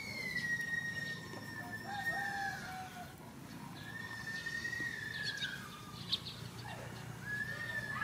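Roosters crowing in the background, three long drawn-out crows each falling in pitch at the end, the first and longest at the start.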